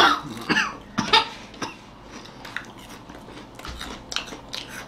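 A person coughing in a few short bursts over the first two seconds, then faint crunching of fried finger chips being chewed.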